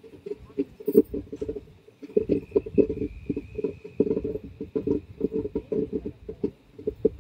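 Passenger train coach running slowly through a curve, with a busy, irregular rattle and clatter from the coach and its wheels on the track. A faint steady high whine joins about two seconds in.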